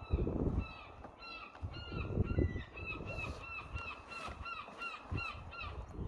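A flock of geese honking, many short calls overlapping about three times a second. Low rumbles of wind on the microphone come in gusts, loudest near the start and around two seconds in.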